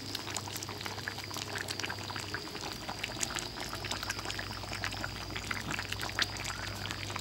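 Pork and pumpkin curry simmering in a large metal pot while a metal ladle stirs through it: a dense run of small bubbling pops and liquid splashes.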